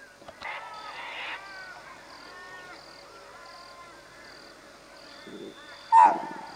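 Open-woodland chorus of birds chirping, with an insect pulsing steadily at a high pitch. Near the end comes one loud, short call that falls in pitch: a chital deer's alarm bark.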